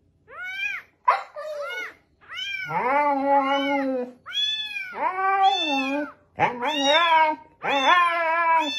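Siberian husky "talking": a series of drawn-out, howling yowls that rise and fall in pitch, about seven calls in all. The shorter, higher calls come near the start and the longer, lower ones follow.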